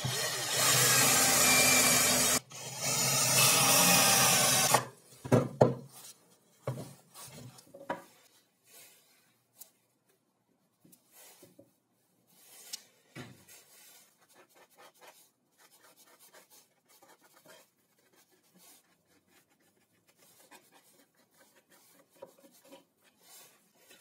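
Cordless drill running as it bores into a plywood square, with two short breaks, stopping about five seconds in. Then quiet scattered knocks and rubbing as plywood pieces are handled on a wooden workbench.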